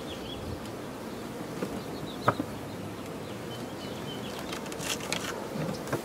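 Honeybees from a package buzzing steadily as their box is set down into a top bar hive, with a single sharp knock about two seconds in and a few softer knocks near the end.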